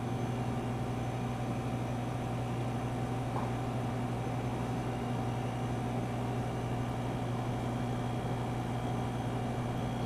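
1/3 horsepower Tecumseh hermetic fridge compressor running steadily, pumping around a closed hose loop: a smooth, even low hum with no knocking. It sounds perfectly healthy.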